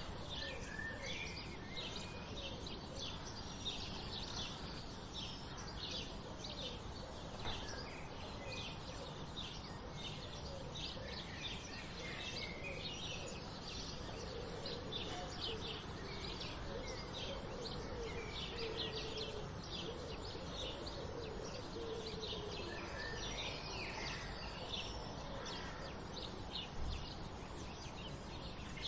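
Dawn chorus of small birds, sparrows among them, chirping constantly in quick high notes. In the middle a lower, repeated call joins in for several seconds, over a steady low background rumble.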